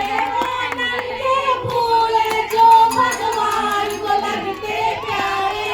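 A group of children singing together in unison, holding long notes, with a few claps near the start.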